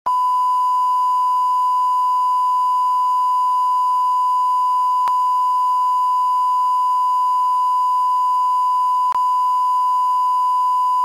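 Television station's steady test tone played with colour bars at sign-off, marking the end of broadcasting. One unbroken pure tone, with two faint clicks about four seconds apart.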